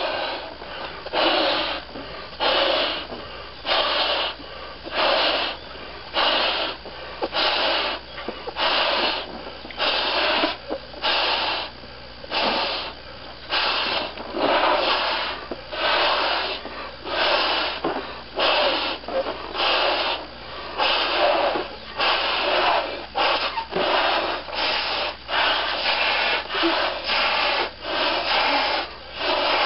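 Two people blowing up 16-inch white Qualatex latex balloons by mouth, breath pushed hard into the balloons in a steady run of rasping puffs, about one a second. The balloons are being over-inflated towards bursting, and neither pops.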